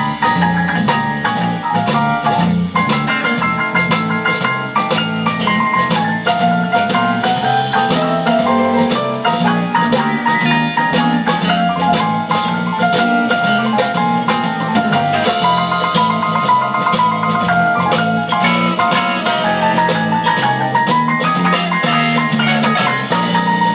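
Live rock band playing an instrumental passage: a drum kit keeps a steady beat under a bass line, with a lead melody of quick short notes over electric guitar and keyboards.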